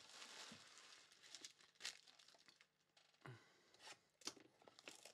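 Plastic shrink wrap being torn and peeled off a sealed trading-card hobby box: faint crinkling with a few short, sharp rips.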